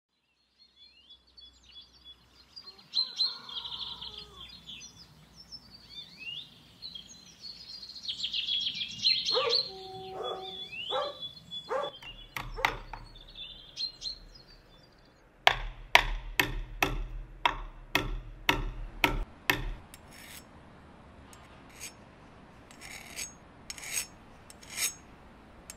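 Birds chirping, then from about halfway a file rasping across the teeth of a handsaw in quick, even strokes, about three a second, sharpening the saw, with a few slower strokes near the end.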